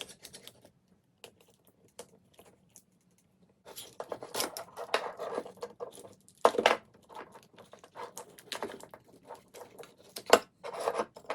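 Hands handling small robot parts and wiring: light clicks at first, then rustling and clattering, with two sharp knocks as parts are set down or pulled free.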